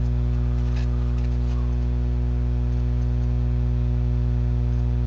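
Steady electrical mains hum with a buzzy stack of overtones, picked up in the recording's audio, with a few faint ticks about a second in.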